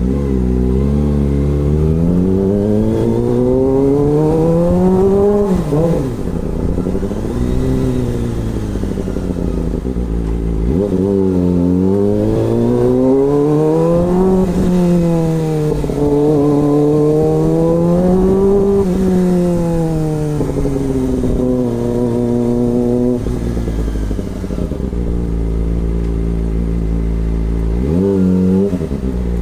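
Kawasaki ZX-25R's 250 cc inline-four engine running, its pitch rising and falling in long sweeps as the revs climb and drop. There is a sharp fall in pitch about six seconds in, and the engine settles lower near the end before revving up again.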